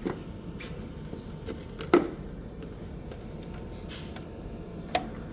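A few sharp clicks and knocks of plastic filter tubes and connectors being handled and fitted, the loudest about two seconds in, over a steady low background noise.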